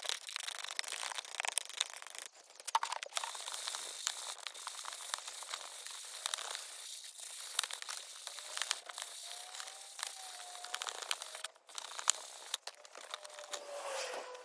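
Hand sanding of a plastic ATV fender with fine wet-and-dry sandpaper on a block: an uneven scratchy rubbing, stroke after stroke, with a few short breaks.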